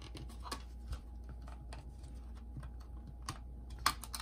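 Small plastic clicks and taps from an Aiwa portable cassette player being handled, with a sharper click near the end as its battery compartment door is worked open.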